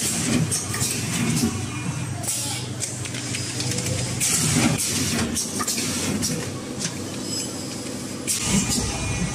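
Vertical form-fill-seal packing machine running: a steady low motor hum with short hissing bursts every second or so.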